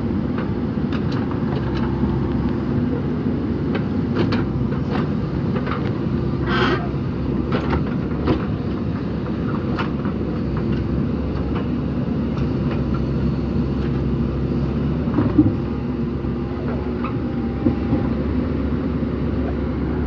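JCB 3DX backhoe loader's diesel engine running steadily under load while the backhoe digs, with scattered knocks and clatter of stones and soil in the bucket. A few sharper knocks come in the second half.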